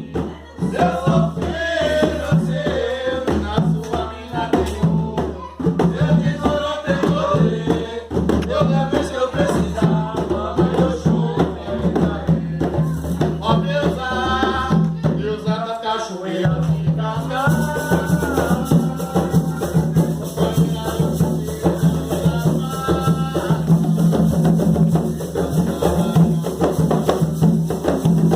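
Umbanda ponto to Oxum: voices singing over hand drums and a shaker rattle, with the drums dropping out for a moment about halfway through before coming back in.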